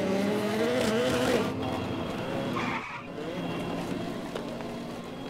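Two EMAX Interceptor 1/24-scale electric RC cars pulling away on concrete: a wavering, tyre-squeal-like screech for about the first second and a half, then a quieter, steadier running sound as they drive off.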